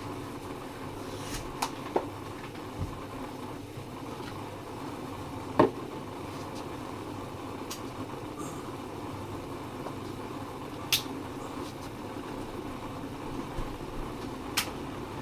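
Steady background hum of a room, with a handful of short, sharp clicks and knocks scattered through it; the loudest comes about five and a half seconds in.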